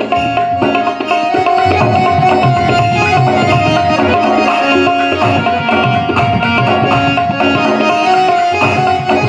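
Instrumental interlude of devotional katha music: hand drums playing a steady, busy rhythm under a held melody line.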